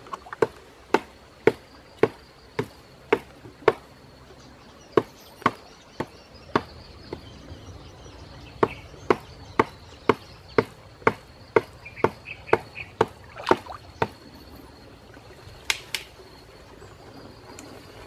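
Sharp strikes, about two a second, in three runs with short pauses between them and a last single strike near the end, over a faint steady high-pitched tone.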